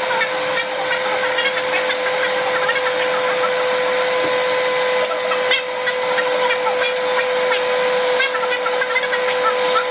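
Countertop blender motor running steadily at one pitch, puréeing cooked chiles and tomatoes in their cooking broth into a red sauce.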